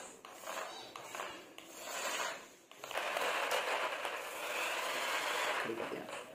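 Battery-powered stunt toy car running on a stone floor: irregular clatter and scraping from its plastic wheels, then a steady whir from its motor and wheels from about three seconds in, stopping just before the end.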